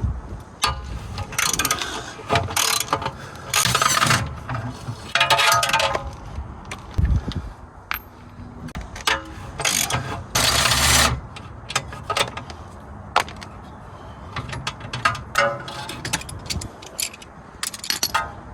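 A hand socket ratchet clicking in short bursts as bolts are worked, with metallic clinks of tools between.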